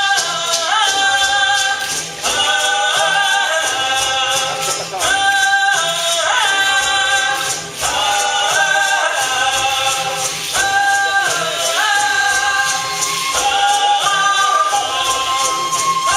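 A group of voices singing a chant-like melody together, holding long notes with sliding pitch changes, over a steady rhythmic clicking beat.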